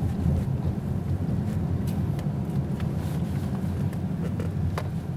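Steady low road and engine rumble of a car driving along a highway, with a few faint clicks.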